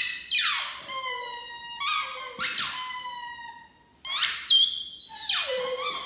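Squeaky plush ball toy squeaking under a Great Dane's paw: three long, high-pitched squeals with short gaps between them, each bending down in pitch as it is pressed.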